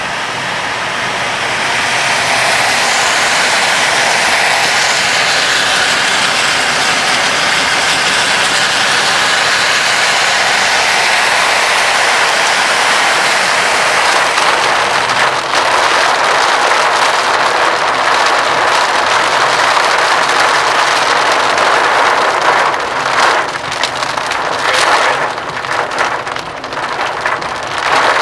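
Heavy rain hitting a moving car's roof and windshield, a loud steady hiss that builds over the first two seconds. In the last few seconds it turns uneven, with scattered sharp hits.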